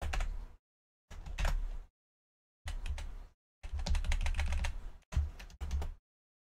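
Computer keyboard typing in about six short bursts of rapid key clicks, with dead silence in between.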